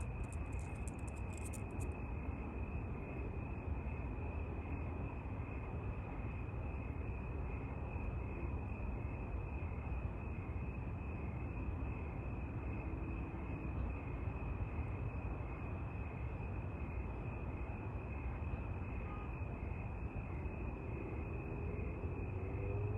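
Crickets chirping steadily in an even, pulsing rhythm over a continuous low rumble.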